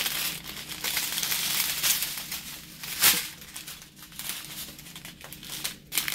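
Strip of sealed plastic diamond-drill bags crinkling as it is handled and unfolded, with one sharp snap about three seconds in.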